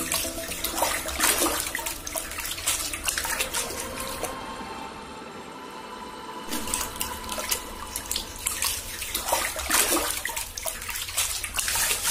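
Shallow muddy paddy-field water splashing and sloshing irregularly as hands grope through it among rice stalks. It goes quieter for a couple of seconds in the middle.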